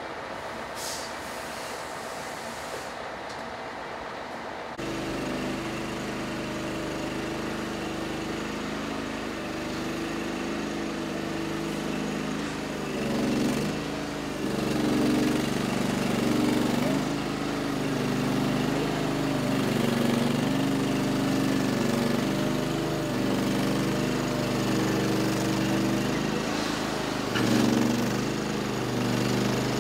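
Truck engine running at shifting revs while moving a semi-trailer; it comes in suddenly about five seconds in, after faint background hum.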